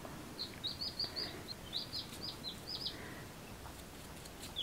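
Baby chicks peeping faintly: a quick run of about ten short, high peeps, then one more near the end.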